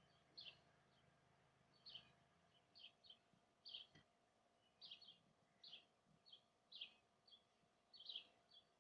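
Faint, quiet background with a bird chirping over and over, short high notes roughly once or twice a second.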